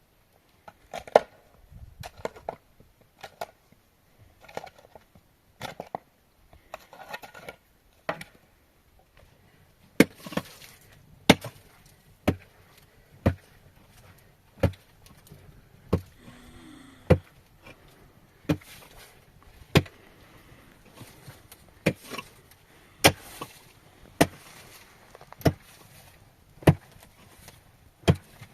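Repeated sharp chopping knocks: light, irregular ones at first, then from about a third of the way in a steady beat of harder strikes about one a second.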